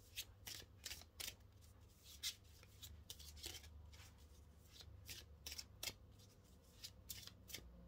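A deck of cards being shuffled by hand: faint, irregular crisp flicks and snaps of card against card, over a low steady hum.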